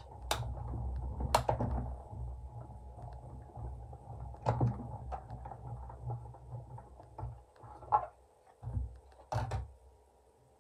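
Hand-cranked die-cutting machine being turned, its rollers rumbling low as they draw the plate sandwich through to cut a circle die into card stock, with scattered clicks. Near the end come a few sharp knocks and thuds as the clear plastic cutting plates are pulled out and set down.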